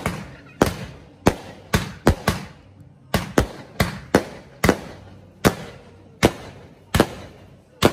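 Fireworks going off in a quick, uneven run of about fifteen sharp bangs, roughly two a second, each followed by a short fading tail.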